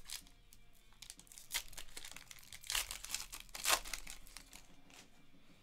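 Foil wrapper of a Panini Recon basketball card pack being torn open and crinkled by hand, in a few short rips, the loudest nearly three and nearly four seconds in.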